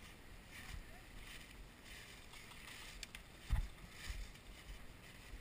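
Footsteps crunching through dry fallen leaves, in short rustles roughly every two-thirds of a second, with one dull thump about three and a half seconds in.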